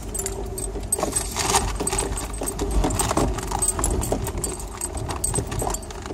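Vehicle rattling and clattering as it bumps slowly over a rough, rocky dirt road: many irregular short clicks and knocks from the cabin over a steady low rumble of engine and tyres.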